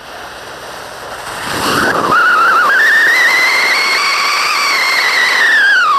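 Whistling firework fountain burning: a hiss of spraying sparks, then about a second and a half in a loud shrill whistle starts, climbs in pitch and holds high and steady, beginning to drop near the end.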